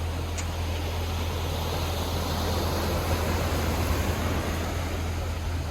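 Sea waves washing onto the beach, one wave swelling and breaking in the middle, over a steady low rumble. A brief high chirp sounds near the start.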